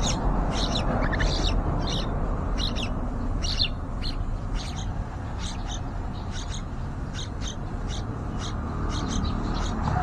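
Yellow-vented bulbul chicks giving short, high chirps about twice a second, over a steady low rumble.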